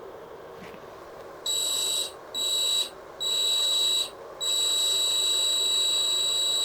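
A high-pitched electronic beeping tone at one fixed pitch, sounding in four bursts of uneven length that start and stop abruptly, the last one long and still going at the end, over a steady low background hum.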